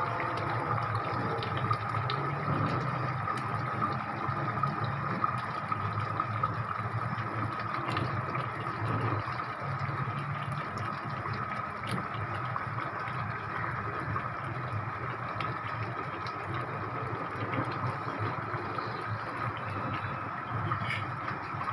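Pot of potato curry simmering on a gas stove burner: a steady hiss and bubbling, with a few faint clicks.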